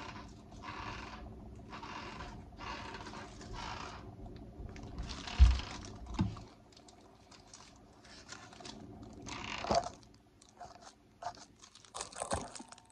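Handling noise: a run of short scratchy rustles about every 0.7 s, a single heavy thump about five seconds in, then scattered clicks and rustles.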